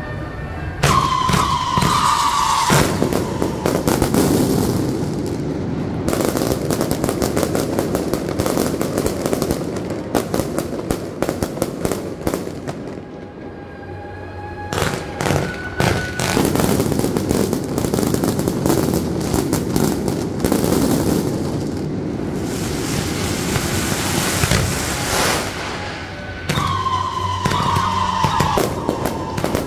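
Strings of firecrackers crackling in dense, rapid volleys, easing off briefly around the middle before building again. A whistle falling in pitch sounds near the start and again near the end.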